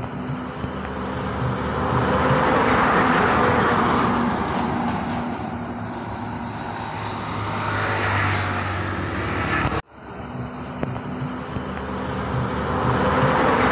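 Motor vehicle traffic passing by: engine and road noise that swells and fades twice, cuts off abruptly about ten seconds in, and then rises again near the end.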